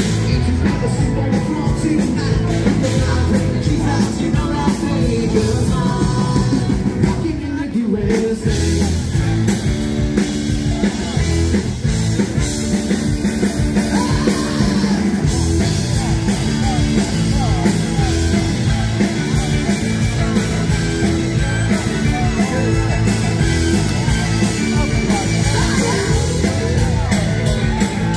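Live rock band playing with singing over a steady drum beat, with a brief dip in the music about eight seconds in.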